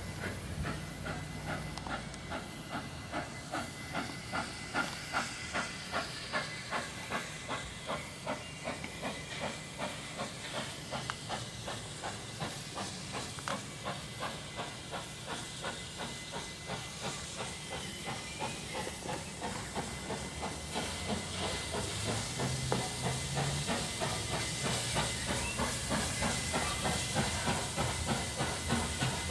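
NSW 36 class 4-6-0 steam locomotive 3642 working slowly under steam while hauling passenger carriages. Its exhaust beats come steadily at about two a second over a constant hiss of steam, louder near the end as it draws closer.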